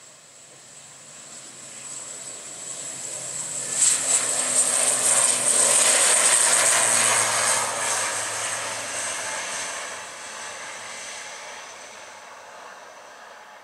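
ATR 72-500 turboprop on its takeoff roll at takeoff power: six-bladed propeller drone under a high steady turbine whine. It swells to its loudest about four seconds in as the aircraft passes, then fades as it runs away down the runway.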